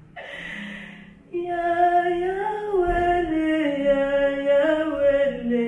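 A single voice singing a slow melody of long held notes that steps gradually down in pitch, after a short breathy hiss in the first second.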